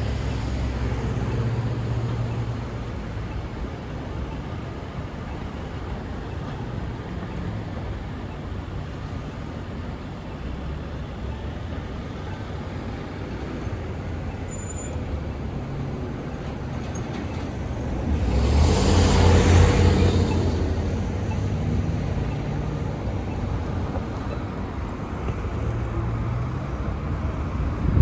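Roadside traffic running past, with one vehicle passing close by about two-thirds of the way through, swelling loud for a couple of seconds and then fading.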